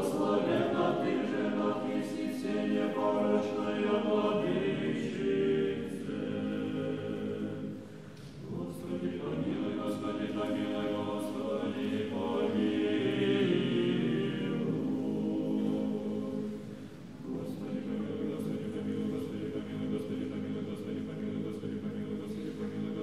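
Orthodox church choir singing unaccompanied, in chanted liturgical style, in three phrases with short breaths between them, about a third and three quarters of the way through.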